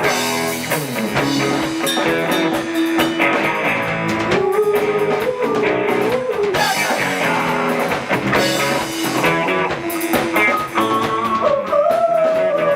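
Rock band music with electric guitar and drum kit: an instrumental passage in which a lead line holds and bends long notes over the band.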